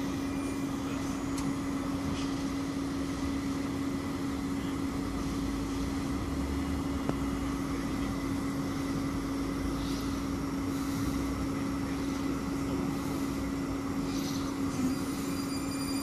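HTM RegioCitadis tram standing at a platform, its onboard equipment giving a steady hum with one fixed low note and a fainter high whine.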